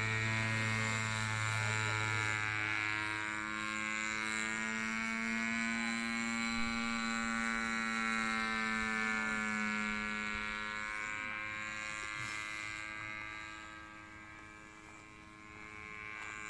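Small engine running with a buzzy drone; its pitch sags a little and then climbs again midway, and the sound fades near the end.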